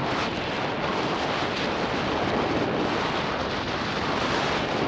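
Steady loud rush of wind on the microphone, mixed with tyre noise from a mountain bike rolling fast down a dry dirt trail.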